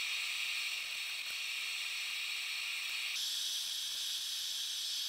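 A steady high hiss with no hammer blows in it, stepping higher in pitch about three seconds in.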